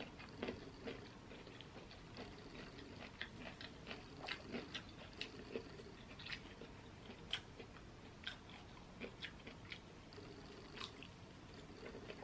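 Close-miked chewing and eating of seafood boil: irregular soft wet smacks and clicks of the mouth, several a second.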